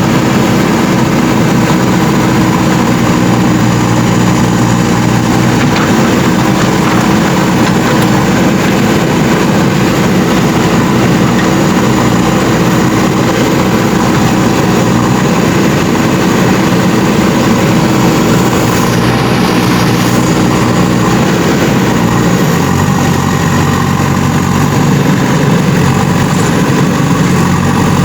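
JCB 3DX Super backhoe loader's diesel engine running steadily, its note changing about three-quarters of the way through.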